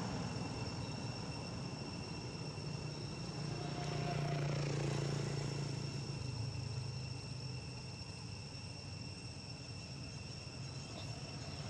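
Steady high-pitched drone of insects, with a low hum that swells and fades around the middle.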